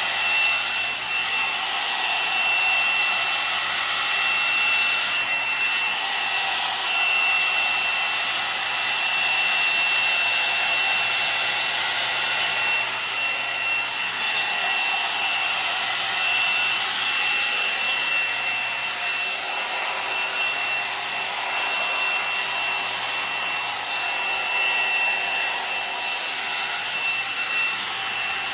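Kommok hot air brush, a hair dryer brush, running on its high setting while drying long hair: a steady blowing hiss with a high motor whine, the level swelling and dipping slowly as the brush is worked through the hair.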